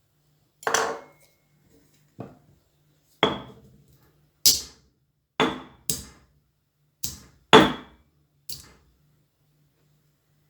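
Kitchen utensils knocking and clinking: about nine sharp, irregularly spaced strikes, some with a brief metallic ring.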